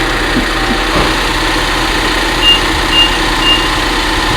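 Car engine idling steadily, with three short high beeps about half a second apart partway through: a car's parking-sensor warning as the car is manoeuvred.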